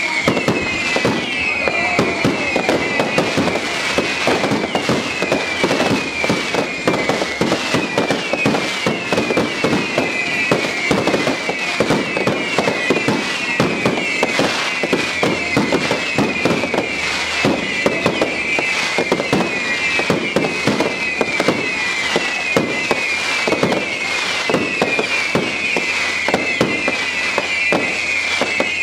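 Fireworks display in a dense barrage: shell bursts and crackling stars going off in close succession without a break, with a high falling whistle-like tone repeating about once a second underneath.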